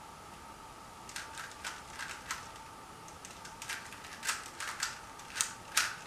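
Rubik's Cube being turned by hand: an irregular run of short, sharp plastic clicks as the layers are twisted, starting about a second in.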